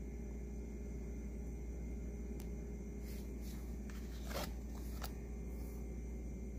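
Steady low room hum with a few faint crinkles and rustles, mostly in the second half, from plastic food packaging being handled.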